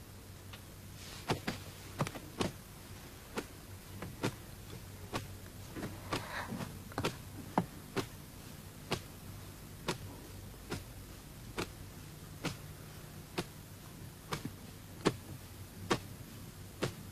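A slow, slightly uneven series of sharp taps, a little more than one a second, over a low steady hum, with a brief rustle around six seconds in.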